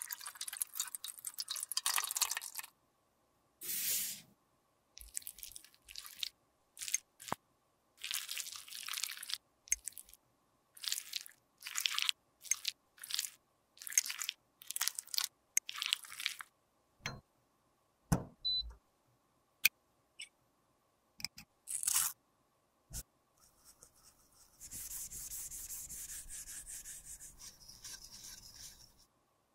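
Old lipstick being scraped, crushed and mixed: a run of short, separate crunching scrapes, over a dozen, with quiet gaps between them. Near the end comes a steady hiss lasting about four seconds.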